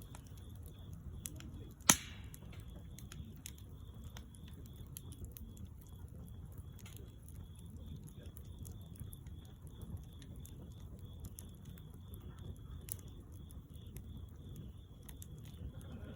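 Wood fire crackling with scattered small snaps over a low steady rumble, and one sharp loud pop about two seconds in.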